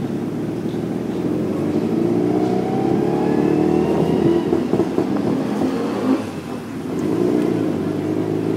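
Tuk tuk's small engine running and revving as it accelerates, heard from inside the cab, its pitch rising through the gears. About six seconds in it briefly eases off, then picks up again.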